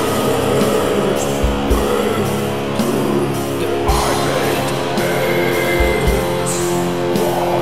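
Funeral doom metal: slow, heavy guitar chords held for long stretches over a few sparse, deep drum hits, with a cymbal crash about six and a half seconds in.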